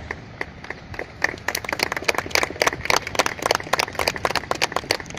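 People clapping: a few single claps at first, then about a second in many hands join in a dense round of applause.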